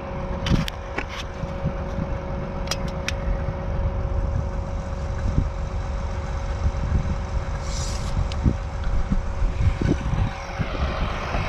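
John Deere tractor's engine running steadily at idle, a low rumble with a faint steady hum, with a few light clicks about half a second in and near three seconds in.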